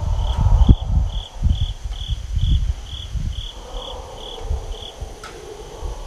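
Night insects, crickets or katydids: a steady high trill with a pulsed chirp about twice a second that stops about five seconds in. Under them, irregular low rumbling thumps on the microphone are the loudest sound. About halfway through a faint, drawn-out lower tone slowly falls.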